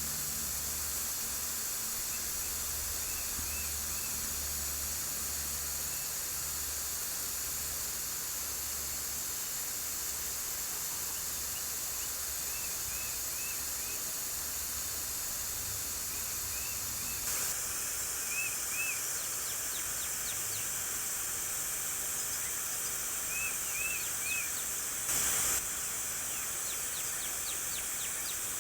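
Garden hose spray shot up into a tree and falling back through the leaves like rain, a steady hiss, with a brief louder rush about 25 seconds in. Small birds chirp through it in short clusters of repeated calls.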